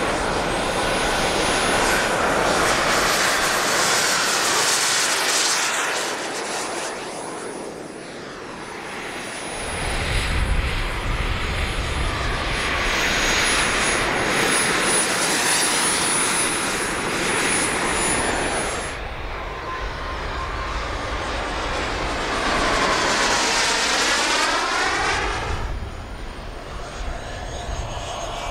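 Radio-controlled model aircraft flying past several times, the engine sound swelling and fading with each pass.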